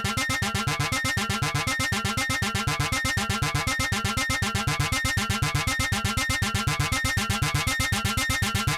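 Electronic music with a fast, steady pulse of short notes, about eight a second, running without a break.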